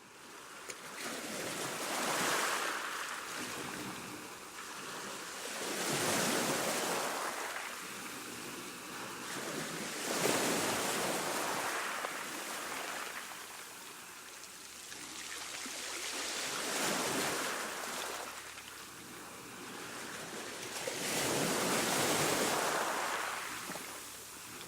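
Calm seawash: small waves washing onto a shore, swelling and falling back five times, a surge every four to five seconds.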